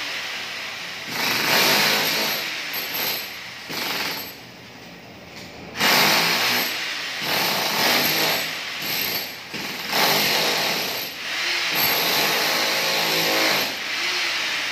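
Handheld electric demolition hammer chiselling up ceramic floor tiles and their mortar bed. It runs in bursts, with a pause of under two seconds about four seconds in and brief let-ups later.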